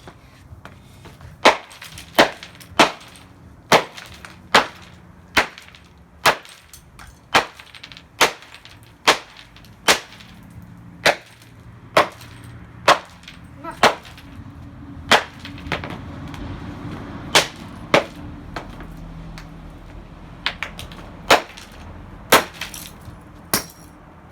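Repeated hammer blows smashing the plastic housing of a Dreamsky DS206 alarm clock radio, a sharp crack of breaking plastic roughly once a second.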